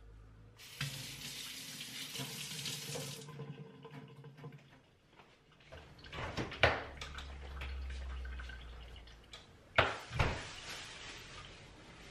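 Kitchen tap running into a stainless-steel sink for about three seconds, then shut off. Scattered knocks and clunks follow, with two or three sharp loud thumps in the second half.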